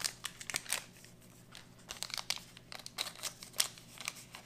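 Crinkling of a small plastic ration sachet as it is worked and torn open by hand: a run of irregular sharp crackles.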